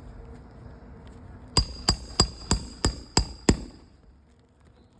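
Hammer blows on a metal nail-driving tool, setting a roofing nail through a new asphalt shingle: seven quick, evenly spaced strikes, about three a second, each with a short metallic ring, starting a little over a second and a half in.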